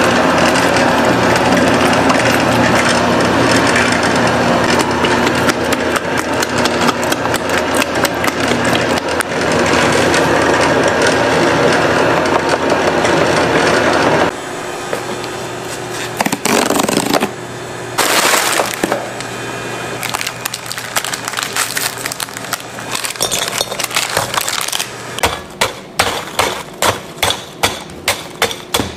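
A large commercial stand mixer runs steadily, its beater churning cake batter in a stainless-steel bowl, and is quieter after about halfway. Near the end, the end of a wooden stick pounds Oreo cookies in a glass bowl, crushing them with sharp cracks about twice a second.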